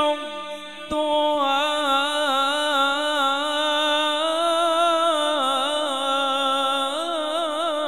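A male qari reciting the Quran in melodic tajweed style. One voice holds long, ornamented notes with quick warbling turns, after a brief break near the start.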